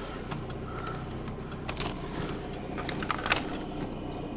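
Steady low hum of an idling vehicle, with scattered light clicks and taps from the camcorder being handled, a cluster of them about three seconds in.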